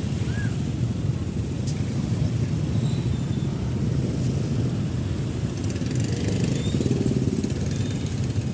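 Motorcycle engine running steadily at low speed in heavy traffic, with a continuous low rumble of road and vehicle noise.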